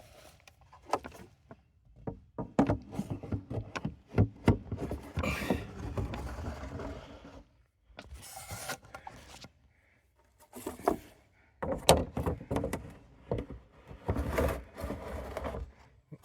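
Scraping, rubbing and knocking as debris is swept and scraped off a beehive's bottom pest-control tray, in irregular stretches with short pauses.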